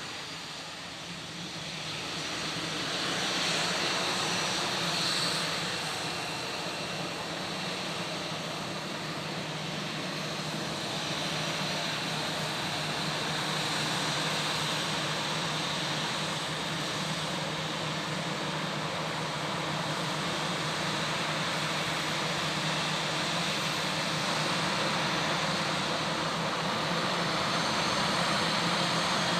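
Airliner's engines running steadily, a continuous rushing noise with a high whine that rises slightly near the end.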